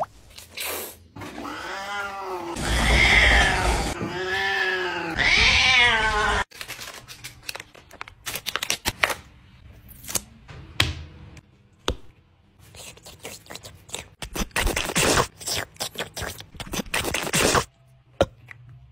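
A cat meowing several times in long, drawn-out calls during the first six seconds, followed by a run of small clicks and taps.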